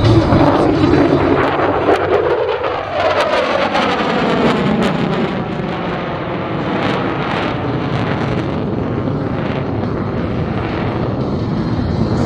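USAF F-35A's single F135 afterburning turbofan running loud as the jet flies a low pedal turn. The pitch sweeps over the first few seconds as it goes past, then settles into a steady rumble.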